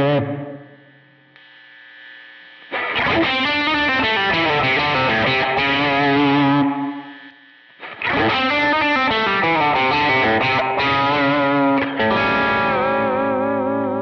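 Overdriven electric guitar played through Anasounds effect pedals: a chord dies away at the start, then two loud phrases of riffing with a short pause between them, ending in held notes with wide vibrato.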